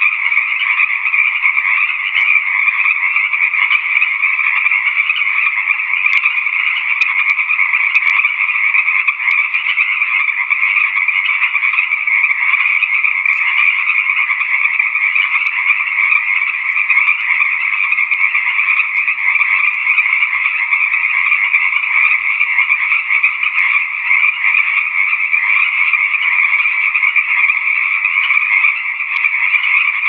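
A dense chorus of tree frogs calling: many overlapping calls merge into one steady, unbroken din, with a higher and a lower layer of pitch.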